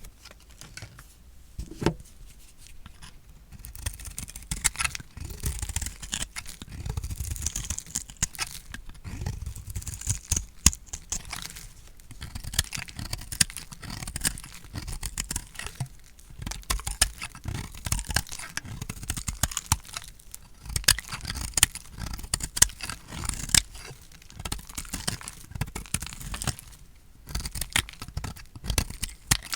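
Dry, painted soap being cut with a blade: continuous crisp crunching and crackling as the brittle soap breaks away, with dull low knocks mixed in.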